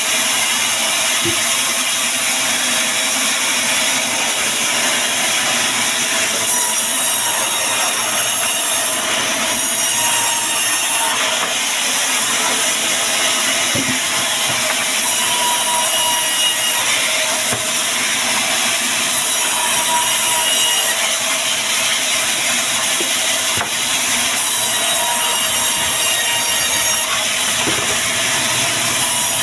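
Bandsaw sawmill running, its blade cutting steadily through wood with a loud, even hiss.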